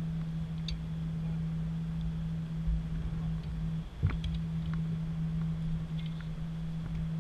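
A steady low hum with a rumble of wind and handling underneath, broken by a few faint clicks and one sharper knock about four seconds in.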